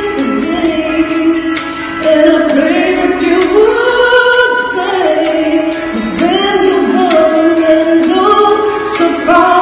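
A man singing a slow melody with long held notes that bend and slide between pitches.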